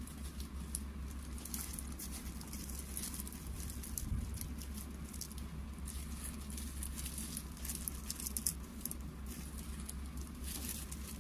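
Light clicks and rustles of cooked prawns being set by hand into a poon choi basin, over a steady low hum.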